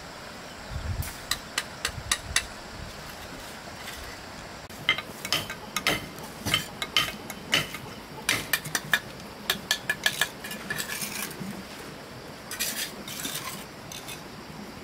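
Irregular series of sharp clicks and clinks of hard objects knocking together, a few of them ringing briefly, over steady background noise.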